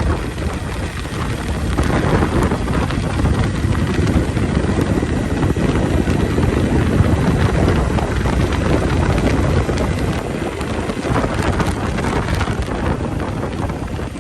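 Motorcycle on the move: engine running under a steady rush of wind on the microphone.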